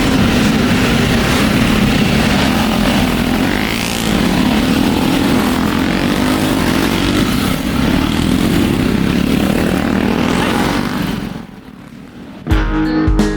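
Motorcycle engines running under way with a heavy rushing noise, the engine pitch rising and falling. The sound drops away about 11 seconds in, and acoustic guitar music starts near the end.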